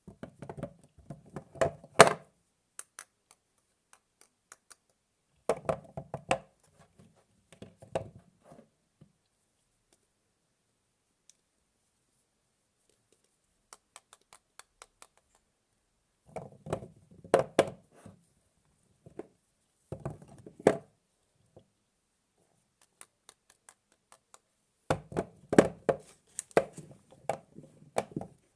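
Bars of soap being unwrapped and handled: several bursts of crackling wrapper and light knocks, with quiet pauses between them.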